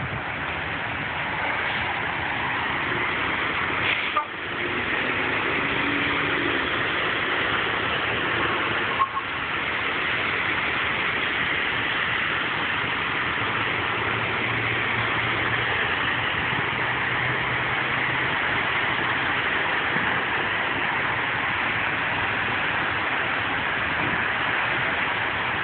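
Steady road noise of traffic on a wet road, a constant tyre hiss with a low engine hum coming through for a few seconds in the middle. Two brief knocks sound in the first ten seconds.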